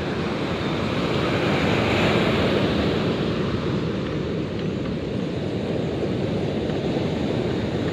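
Rough sea surf breaking and washing up the beach in a steady rushing roar, with wind buffeting the microphone.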